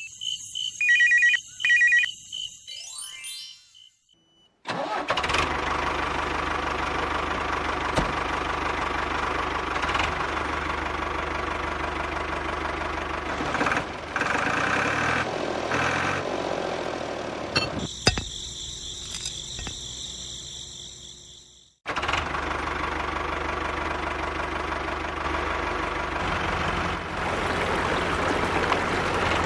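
Tractor engine running steadily with a spading machine working the soil. The sound is cut together from several takes. There are short chime-like tones at the start and again about 18 seconds in.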